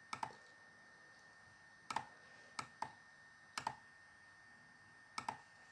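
Computer mouse clicking: about seven short sharp clicks, some in quick pairs, over a faint steady hiss.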